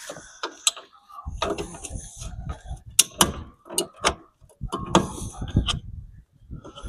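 Irregular metal knocks, clicks and scrapes of hand tools working on a car's rear drum-brake and hub parts.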